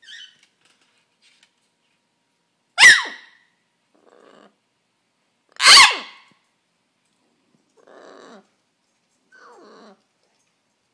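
Pet bird giving two loud, sharp screeches about three seconds apart, each falling in pitch, followed by quieter raspy, grumbling sounds.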